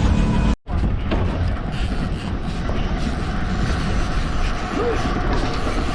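Steady rumble of a fishing boat's outboard motor with wind and water noise. The audio cuts out for an instant about half a second in, then the running continues.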